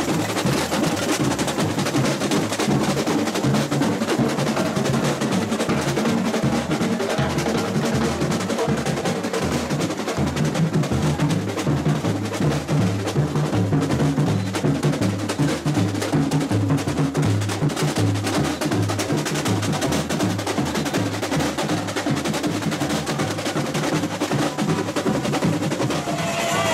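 Samba batucada: a drum section playing a steady, driving groove, with deep bass drum beats under rapid snare-drum and wood-block-like strokes.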